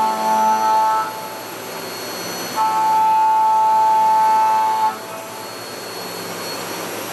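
Hwacheon M3-5AX 5-axis machining center milling an aluminium impeller with a 20 mm cutter at 6,200 rpm under flood coolant. Coolant spray and spindle make a steady hiss throughout. A loud, steady pitched whine from the cutter in the cut comes for about the first second and again for about two seconds in the middle.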